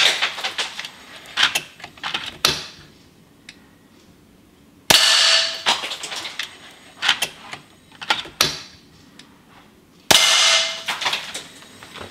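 Two shots from an FX Impact MK2 PCP air rifle, about five seconds apart, with the dying decay of a third shot at the very start. Each shot is mostly the sharp clang of the pellet striking a pellet catcher too light and too close for the rifle's power, with lead fragments shattering. After each shot comes a short series of clicks from the side lever being cycled to load the next pellet.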